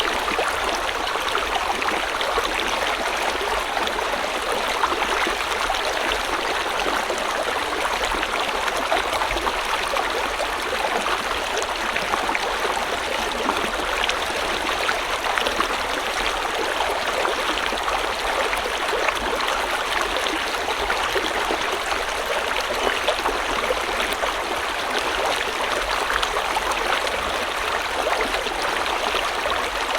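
River water flowing steadily over stones, a continuous even rushing with fine trickling and gurgling detail.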